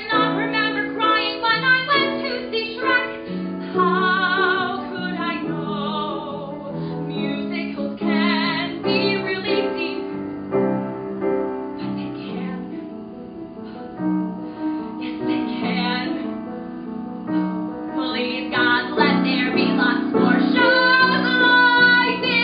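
A woman singing a musical-theatre song solo with piano accompaniment, her held notes carrying a clear vibrato. The voice thins out in the middle, then grows louder near the end on long held notes.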